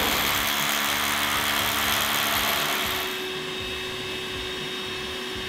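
Steady motor whine: the SDS rotary hammer drill spins with its hammer action stopped as the bit is drawn out of the concrete hole. About three seconds in, it gives way to a quieter, steady shop vacuum sucking concrete dust out of the anchor hole.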